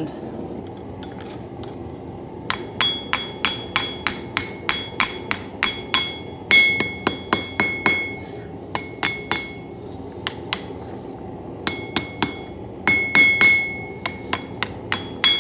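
Hand hammer striking hot coil-spring steel on an anvil to clean up the forged knife blade. The blows start about two and a half seconds in and come at roughly three a second, in runs broken by short pauses. Each blow has a bright ring.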